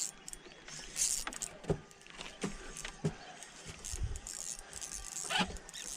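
Irregular clicks, knocks and short hissing rustles of fishing tackle being handled while a hooked fish is brought in on an ultralight spinning rod and reel.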